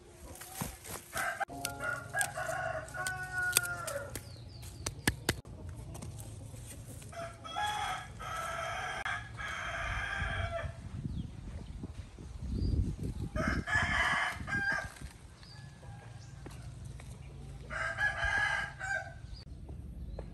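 Roosters crowing, four crows of one to three seconds each, spaced through the stretch. Scattered sharp clicks sound in the first few seconds, and soft thuds in the middle fit footsteps on soil.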